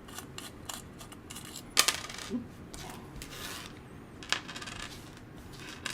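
Small metal parts and hand tools clicking and clinking against each other and the bench as a guitar effects pedal is taken apart. A sharper clink that rings briefly comes just under two seconds in, with lighter scattered ticks around it.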